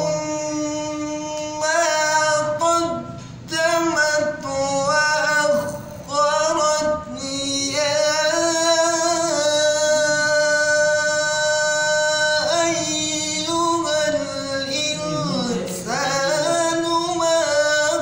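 A man reciting the Quran solo and unaccompanied in a melodic tajweed style, drawing out long ornamented notes. About eight seconds in, one note is held steady for around four seconds before the melody moves on.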